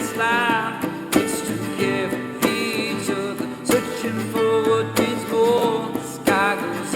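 A song with singing over acoustic guitar, the voice wavering with vibrato and set in reverb, with a sharp beat about every second and a quarter.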